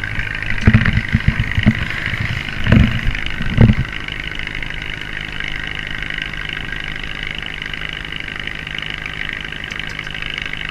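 Steady running of a motor aboard a fishing boat: a low hum with a higher whine over it. A run of loud knocks and thumps comes in the first four seconds.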